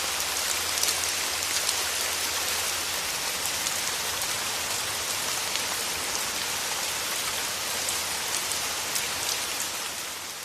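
Steady rain: a dense, even hiss of rainfall with many individual drops ticking through it, beginning to fade out near the end.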